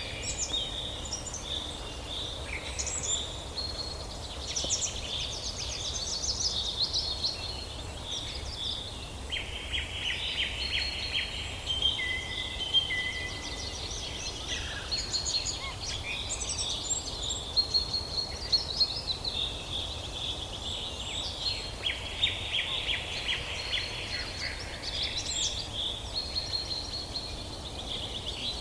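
Several songbirds singing and calling at once, with overlapping chirps and rapid trills throughout.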